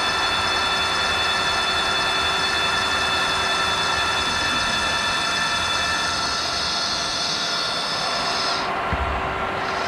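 A metalworking machine running with a steady whine made of several high tones over a noisy hum. The highest part of the whine drops away near the end.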